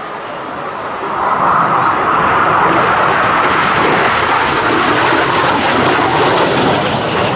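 Jet noise from a USMC AV-8B Harrier II's Rolls-Royce Pegasus turbofan as the jet flies past, swelling about a second in and then staying loud and steady.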